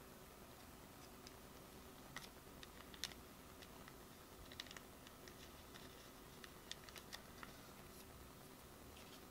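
Faint, scattered small clicks and ticks of a trading card being handled and slid into plastic card sleeves (double sleeving), with the sharpest tick about three seconds in and a quick run of clicks near the end, over a faint steady hum.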